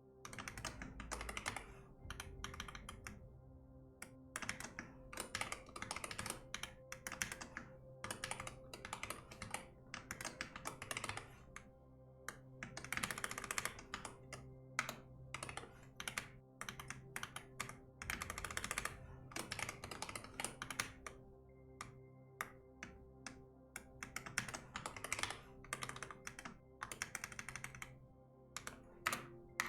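Typing on a computer keyboard: quick runs of key clicks in irregular bursts with short pauses between, over soft ambient background music of steady held tones.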